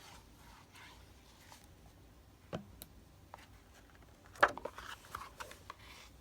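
Light handling of paper and craft supplies on a work table: a couple of soft clicks, then a louder clatter about four and a half seconds in, followed by brief paper rustling.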